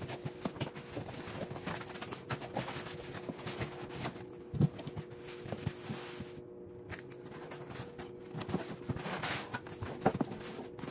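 A large cardboard shipping box being handled and opened: cardboard flaps rustling and scraping, with scattered knocks and a heavy thump about halfway through as the box is set down. A faint steady hum sits underneath.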